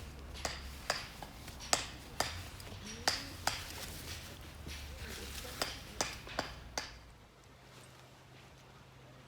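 A dozen or so sharp, irregular clicks and taps over a low steady hum; the clicks stop and the hum drops away about seven seconds in, leaving a fainter, higher hum.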